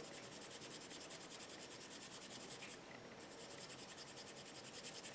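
Faint, rapid scratchy rubbing of a small dry brush, a quarter-inch Lunar Blender, scrubbed back and forth over a painted surface to dry-brush a highlight. It eases off briefly about three seconds in.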